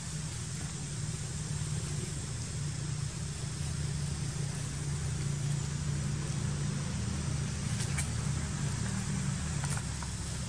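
A steady low hum of an engine running, over a constant even hiss, with a couple of faint clicks about eight and ten seconds in.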